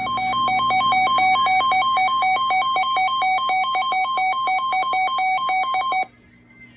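Loud electronic two-tone alert alarm for a severe thunderstorm warning on weather radio: it fades in, warbles rapidly between a higher and a lower pitch, and cuts off suddenly about six seconds in.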